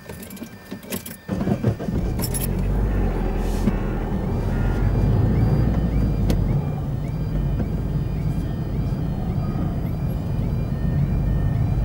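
A car pulls away after a few knocks and drives on with steady engine and tyre noise heard from inside the cabin. Behind it a level crossing's warning alarm sounds, a faint repeating warble about twice a second, while the crossing's red lights are flashing.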